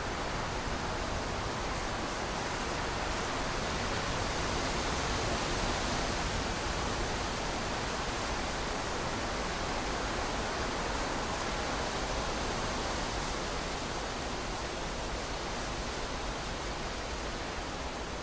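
Steady, even hiss with no distinct events, swelling slightly a few seconds in and easing off again toward the end.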